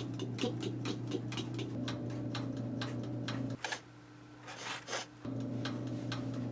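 A small machine humming in two stretches, stopping for a couple of seconds in between, with rapid, uneven ticking throughout.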